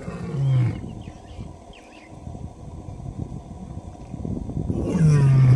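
Male lion roaring: two long, loud roars that fall in pitch, one about half a second in and one near the end, with a lower rumble between them.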